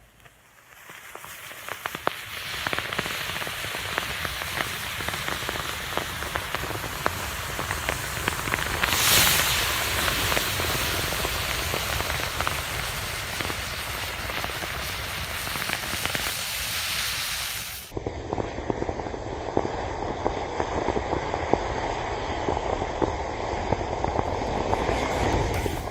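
Many match heads flaring and burning in a chain reaction: a steady crackling hiss full of small pops. It builds over the first couple of seconds and swells briefly about nine seconds in. An abrupt cut comes about two-thirds of the way through, after which the crackling goes on duller.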